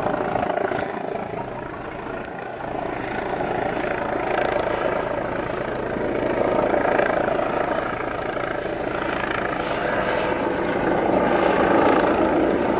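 Helicopter hovering overhead: a loud, steady rotor and engine noise.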